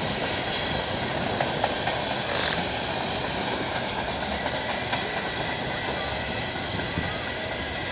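Freight train cars rolling steadily past: a continuous rumble of steel wheels on rail with a few faint clicks, over a thin, steady, high ringing.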